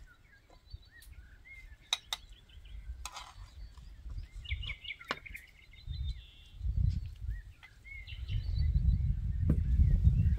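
Small birds chirping, with a few sharp clinks and scrapes of a metal spatula against a frying pan and plate as food is served. A low rumble grows louder over the last few seconds.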